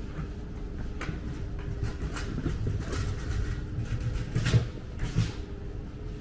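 City street background: a steady low rumble, likely traffic, under a faint steady hum, with several short knocks or clatters, the loudest about four and a half seconds in and another just after five seconds.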